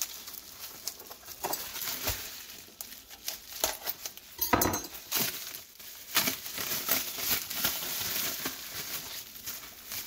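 Pink anti-static bubble wrap crinkling and crackling as hands pull it open and unwrap a circuit board, in irregular handling noises with a denser burst about halfway through.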